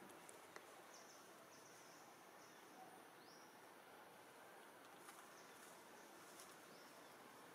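Near silence: faint outdoor ambience, a steady hiss with a few faint, short, high chirps.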